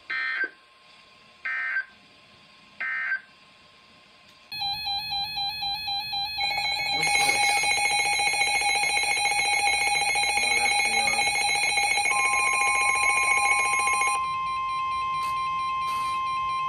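Emergency Alert System tones: three short digital data bursts about a second and a half apart, then a loud electronic alert signal that pulses rapidly for about two seconds and settles into a steady two-tone alarm. Near the end it gives way to a single steady tone.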